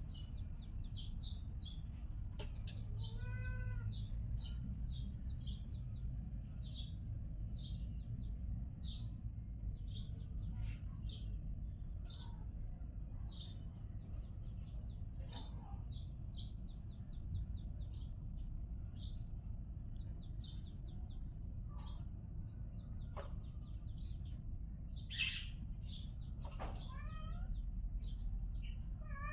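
Small birds chirping in quick runs of short, high notes throughout, with a kitten mewing briefly about three seconds in and twice near the end.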